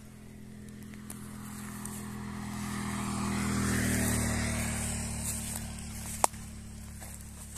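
A motor vehicle's engine hum passing by, growing louder to a peak about four seconds in and then fading away. A single sharp click about six seconds in.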